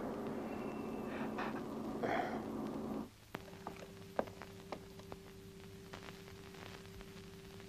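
A muffled rushing noise cuts off abruptly about three seconds in. It gives way to a quiet, steady low hum with scattered small clicks and taps, one sharper tap just after the cut.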